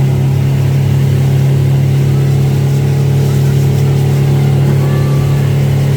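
Motorboat engine running steadily at speed, a constant low drone with no change in pitch, typical of a boat towing a banana boat.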